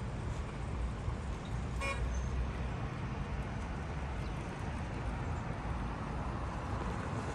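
Steady low rumble of outdoor road traffic, with one short car horn toot about two seconds in.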